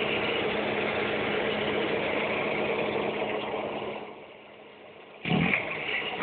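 Car engine idling with a steady hum, its intake fitted with a Tornado swirl device behind a high-flow air filter. The sound drops away about four seconds in, and a short loud burst comes near the end.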